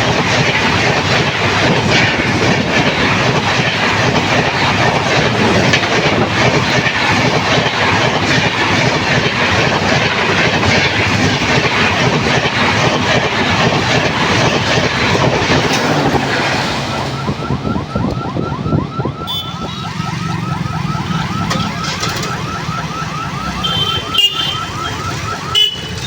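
A passenger express train's coaches roll past at speed with a dense, steady rushing clatter, which falls away about two-thirds of the way through. After it, a fast, evenly repeating electronic alarm tone sounds, with a few short higher beeps near the end.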